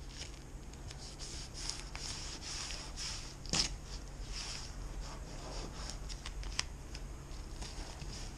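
Masking tape being handled, folded and pressed down by hand over foam masking tape at a panel edge, with plastic masking sheet rustling: soft crinkling and rubbing throughout, with one sharper crackle about three and a half seconds in.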